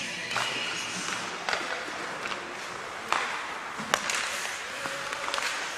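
Ice hockey play in an arena: skate blades scraping the ice and several sharp clacks of sticks and puck, the loudest about three and four seconds in, over the echo of the hall.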